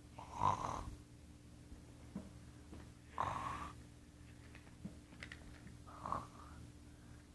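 A person faking snoring: three snores about three seconds apart, over a faint steady low hum.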